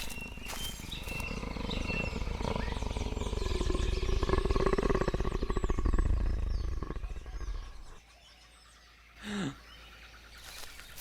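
A deep animal growl that swells into a rough, rumbling roar, loudest around four to six seconds in and cutting off about eight seconds in. A short cry falling in pitch comes about a second later.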